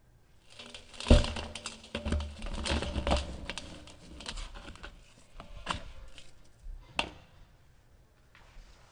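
Dry sand-and-cement block being crushed and crumbled between the fingers over a glass bowl: gritty crunching and crackling, with grit pattering onto the glass. The crunching is thickest in the first few seconds, then thins to scattered crackles and a couple of sharp clicks.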